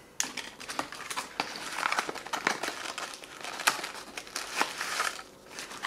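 Crinkling and rustling of ration packaging being handled, including a folded cardboard stove box, with many irregular crackles and a short lull near the end.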